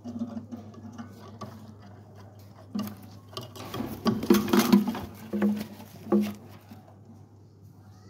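Knocking and rubbing against a wooden parrot box as it is handled, with a cluster of loud knocks from about three to six seconds in, over a low steady hum.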